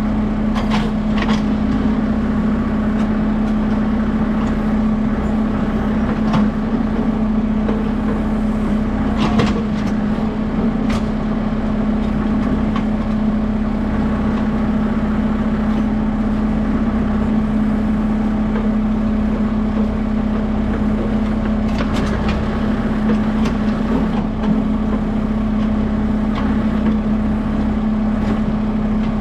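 Kubota M6060 tractor's diesel engine running steadily at a constant speed, with a few sharp metallic knocks about a second in, near the middle and about three quarters through.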